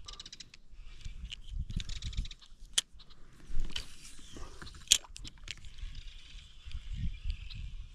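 Spinning reel being cranked during a retrieve, its gears ticking rapidly, with scattered clicks and two sharper, louder ones about two seconds apart. A low rumble of wind on the microphone runs underneath.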